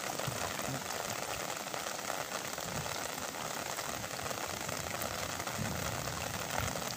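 Heavy rain falling on open water: a steady hiss of countless drops striking the surface.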